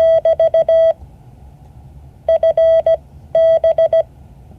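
Morse code practice tone: a single steady beep keyed on and off into dots and dashes, sent in three groups, in the first second, around two and a half seconds in, and near the end, for the class to copy.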